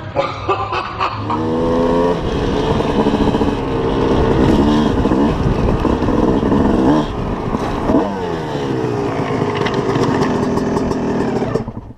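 Dirt bike engines running and revving, the pitch rising and falling with the throttle. The bike carrying the camera is heard close up.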